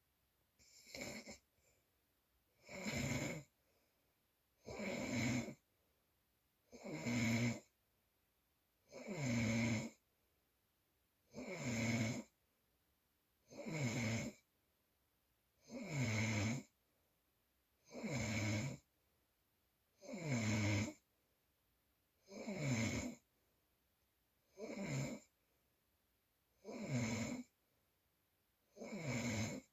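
Loud, regular snoring: about fourteen snores, one roughly every two seconds, each a short pitched rasp with quiet breaths between.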